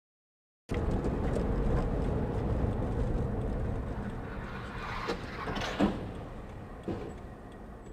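Vehicle driving, a steady road and engine rumble picked up by a dash camera, starting abruptly under a second in and slowly fading, with a few short knocks near the end.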